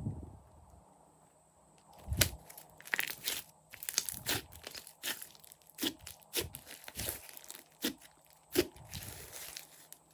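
Hands squishing and stretching slime, giving a dense, uneven run of sticky pops and crackles that starts about two seconds in.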